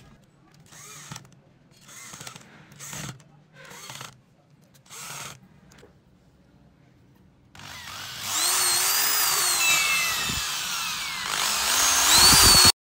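Keyang electric drill's motor run in five short blips, then run for about five seconds with its pitch rising and falling as the trigger is worked. The run is the loudest part and cuts off suddenly near the end.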